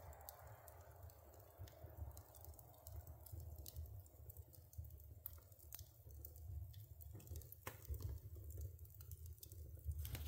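Wood fire crackling in a wood stove's firebox: faint, irregular small pops and ticks from the burning split logs, over a low steady hum.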